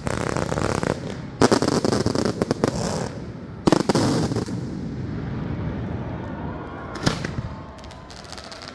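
Aerial fireworks shells bursting overhead: several sharp bangs, each followed by a spell of crackling as the glittering stars break up.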